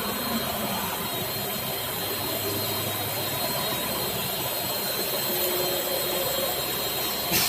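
Automatic fettling machine for iron castings running steadily, a constant high whine over an even mechanical noise, with a brief click near the end.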